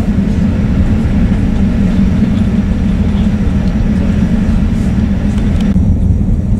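Steady low drone of the Beetle jetfoil high-speed ferry's engines heard inside the passenger cabin. Near the end the higher hiss drops away suddenly, leaving the low hum.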